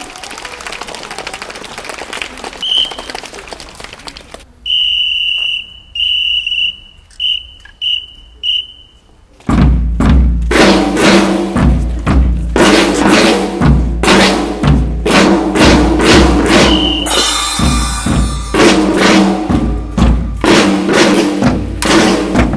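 Crowd noise, then a whistle blown in a pattern of two long blasts and four short ones, after which music with a loud, regular drum beat starts up about halfway through and carries on.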